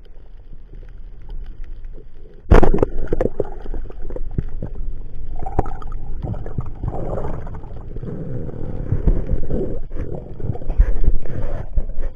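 Underwater rushing and gurgling of water against the camera as a diver swims, with a sudden loud knock about two and a half seconds in. Many smaller knocks and bumps follow in the steady rumble of moving water.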